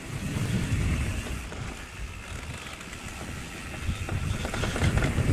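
Mondraker Level R e-mountain bike rolling down a dirt forest trail: a continuous, uneven rumble and rattle of tyres and frame over the ground, with a few sharper knocks near the end.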